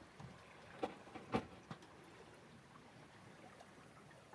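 Faint steady wash of water and wind aboard a small sailboat under way, with three sharp knocks close together about a second in.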